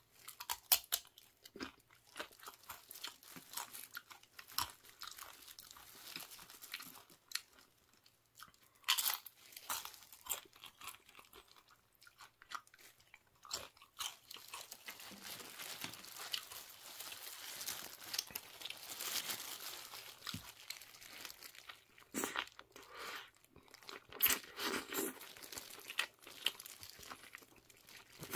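Tortilla chips crunched and chewed close to the microphone, in irregular bursts of sharp crunches.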